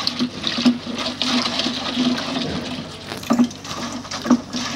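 Used X-ray solution sloshing and swirling as it is stirred with a stick in a plastic drum, mixing in a precipitating chemical so the silver-bearing sludge separates out. A couple of sharper knocks come near the end.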